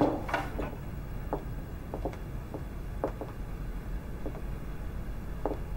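Footsteps in heeled shoes clicking on a hard floor, about two steps a second, over a faint room hum.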